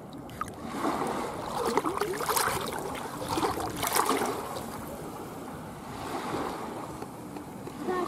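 Shallow seawater splashing and sloshing around bare feet at the water's edge. It is loudest from about one to four and a half seconds in, with sharp splashes near two and a half and four seconds, then settles to quieter lapping.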